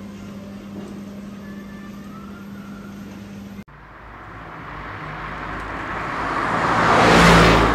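Steady store hum, then an abrupt cut to highway traffic noise. The rush swells as a vehicle passes close by, loudest shortly before the end, then fades.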